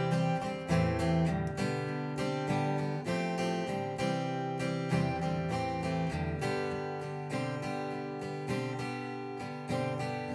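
Acoustic guitar strummed through a four-chord progression of F, C, A minor 7 and G, in standard tuning without a capo.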